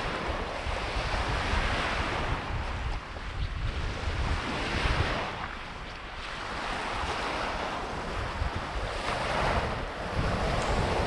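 Baltic Sea surf washing onto a pebbly beach, surging and easing every few seconds. Wind rumbles on the microphone underneath.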